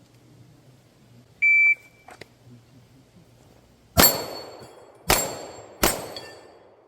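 Shot-timer start beep, one high steady tone lasting about a third of a second. About two and a half seconds later come three gunshots, a second and then under a second apart, each with a metallic ring from the Texas Star's steel plates.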